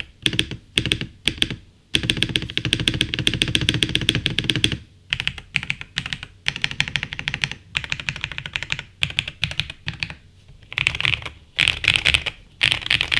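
Typing on a tape-modded, foamed GM326 gasket-mount mechanical keyboard with hand-lubed Akko V3 Cream Blue Pro tactile switches, PBT keycaps and a polycarbonate plate. A fast unbroken run of keystrokes about two seconds in, then shorter bursts of typing with brief pauses.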